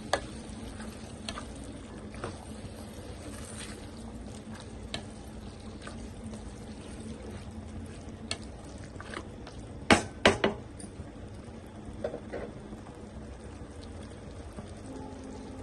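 Keema, peas and freshly added yogurt being stirred in a kadhai, the masala sizzling steadily, with a few sharp clinks of the spoon against the pan and a quick run of three loud knocks about ten seconds in.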